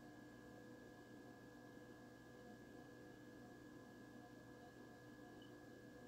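Near silence: a faint, steady hum made of a few held tones that do not change.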